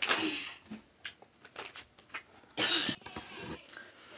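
Handling noises of snack packaging: a short rustle, scattered small clicks and taps, and a louder brief crinkle about two and a half seconds in.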